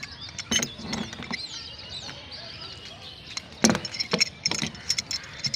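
Steel pipe wrench clinking and knocking against a rusted metal pipe nipple as it is worked loose from a plastic water tank's outlet: scattered metal clicks, with sharper knocks about half a second in and a quick cluster from three and a half to four and a half seconds in.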